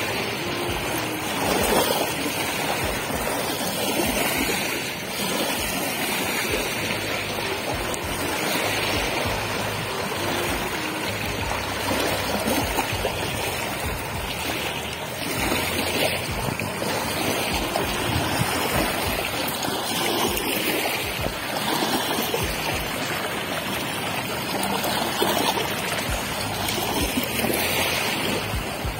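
Small river waves lapping and washing onto a pebble shore, swelling every two to three seconds.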